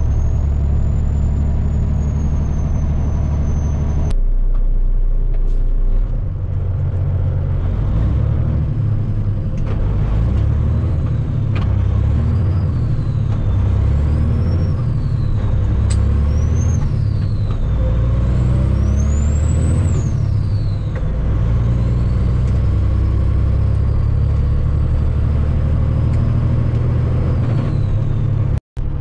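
Heavy diesel dump truck engine under way, its revs climbing and dropping again and again as it shifts up through the gears, with a thin high whistle rising and falling along with the revs.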